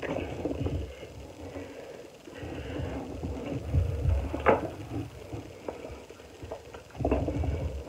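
Soft rustling and handling noises with low thuds as lotion is rubbed onto the back, and a brief knock about halfway through.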